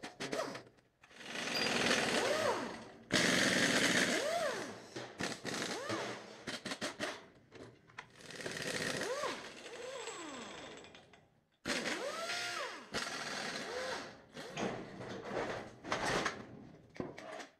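Pneumatic impact wrench undoing bolts on a suspension arm, run in repeated bursts of rattling hammering whose pitch rises and falls as the tool spins up and slows, with short clanks between bursts.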